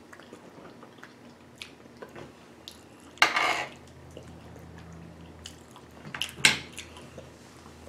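Metal spoon clinking and scraping against a board while scooping up loaded fries, with small clicks throughout and two louder scrapes, one about three seconds in and one about six seconds in.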